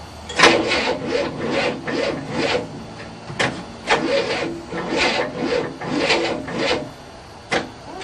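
Starter cranking the 1967 Cadillac's 429 V8 after 30 years without running: the engine turns over slowly in an even rhythm of about two to three strokes a second over the starter's hum, and it does not catch. The cranking stops about seven seconds in, and a single click follows.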